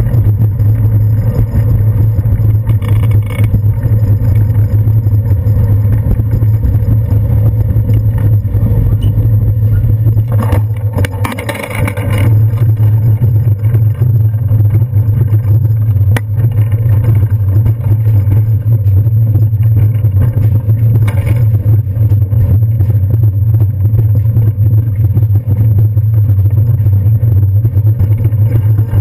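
Steady low wind and ride rumble on a handlebar-mounted action camera as a bicycle is ridden, with a brief louder rattle and hiss about eleven seconds in.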